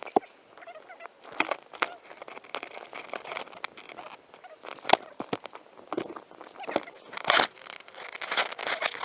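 Digging in garden soil to lift sweet potatoes: irregular crunches and scrapes of dirt and roots being worked, with a sharp knock about five seconds in and a longer scrape about seven and a half seconds in.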